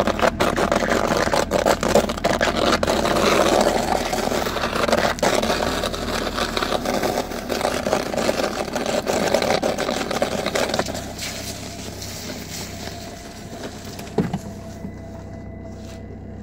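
Leather Buffalo boots scraping and rubbing against a car trunk's carpeted floor: a dense rasping with many small knocks, stopping about eleven seconds in and leaving a steady low hum and a single knock near the end.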